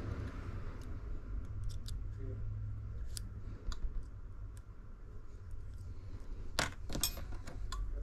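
Light, scattered clicks and taps of small hand tools and parts being handled at a repair bench, with two louder sharp clicks about two-thirds of the way in, over a steady low rumble.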